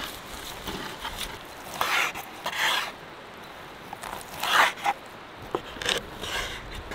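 A series of short rasping scrapes, about five strokes, some in quick pairs.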